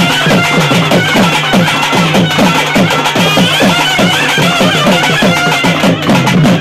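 Traditional Tamil temple-festival music for a ritual dance: drums beat a steady run of low strokes that slide down in pitch, about three a second, under a wavering melody.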